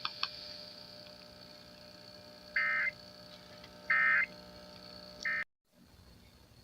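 Three short bursts of EAS (SAME) end-of-message data tones, the digital signal that closes an Emergency Alert System broadcast, spaced about a second and a quarter apart, with the third cut short, over a faint steady hum. The sound then cuts off to silence.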